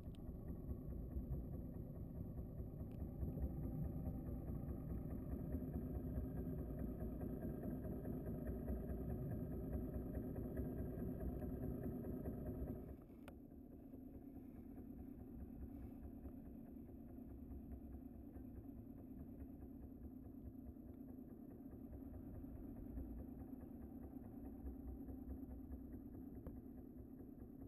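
Boat engine running steadily, a low hum with a constant pitch, which drops in level about 13 seconds in.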